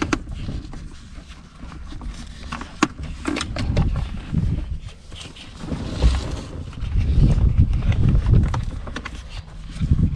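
Handling noise of a replacement shift boot being worked down into a car's centre console: uneven low rustling and bumping, with a few sharp clicks as it is pressed into place.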